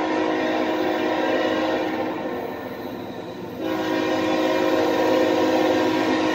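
Norfolk Southern freight locomotive's air horn sounding a chord in long blasts. One blast fades out about two seconds in, and the next long blast starts a second and a half later and holds.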